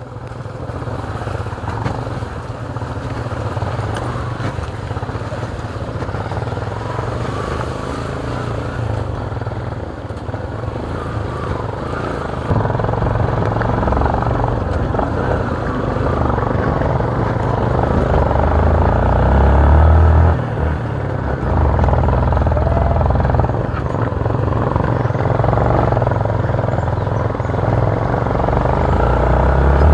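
Motorcycle engine running steadily while being ridden on a rough dirt road; it grows louder about twelve seconds in.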